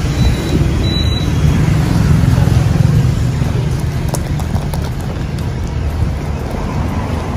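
Steady low rumble of road traffic passing on the street, with a few faint light ticks about four seconds in.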